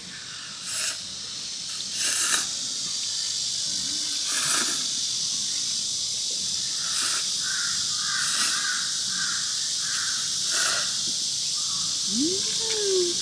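Crows cawing several times, including a quick run of caws, over a steady high-pitched drone of cicadas.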